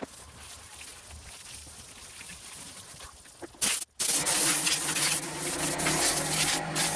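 Water spraying onto the pressure washer to rinse off spilled oil: a steady hiss, breaking off just before four seconds in and coming back much louder and closer.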